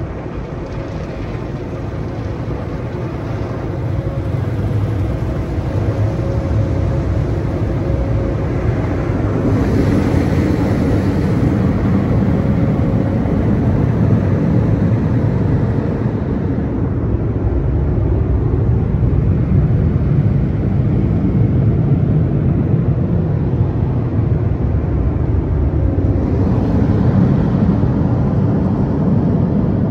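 Tunnel car wash dryer blowers running, a loud steady rush of air that grows louder over the first few seconds as the car moves under them.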